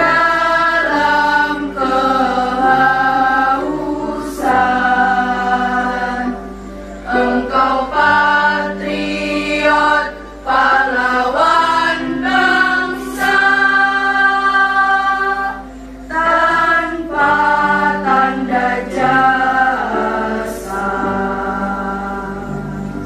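A girls' choir singing into microphones, held notes in phrases with short breaks between them.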